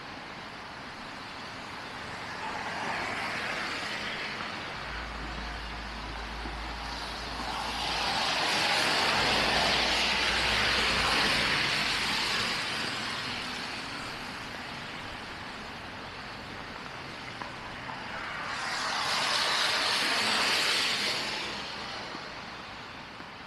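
Vehicles passing on a snowy city street, their tyre hiss swelling and fading three times, the longest pass about a third of the way in, over a steady background of traffic.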